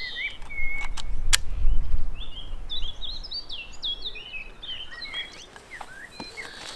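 A small songbird singing a rapid twittering run of chirps, with a few whistled notes just before. A low rumble in the first two seconds is the loudest sound, and a few sharp clicks come about a second in.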